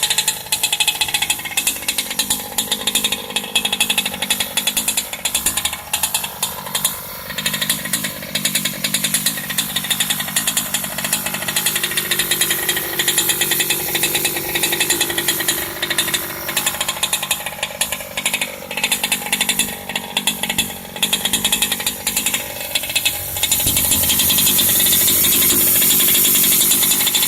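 Small engine idling with rapid clicking from its Turtle Racing V2 pull start, the starter's dogs rattling against the flywheel at idle, which the owner takes as normal. About 23 seconds in the throttle is opened for a few seconds: the engine runs louder and smoother and the clicking stops. It then drops back to idle and the clicking returns.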